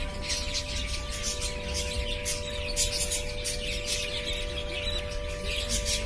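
Budgerigars chirping: short high-pitched peeps repeating several times a second, with a faint steady hum underneath.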